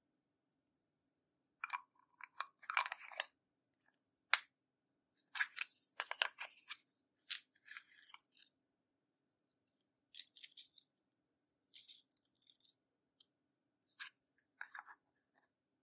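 Makeup and slime being handled in close-up: short, irregular bursts of crunching and crackling clicks with quiet gaps between, over a faint steady hum.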